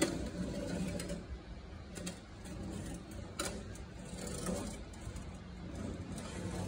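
A low steady hum under soft rustling and handling noise, with a few sharp clicks, the clearest about three and a half seconds in.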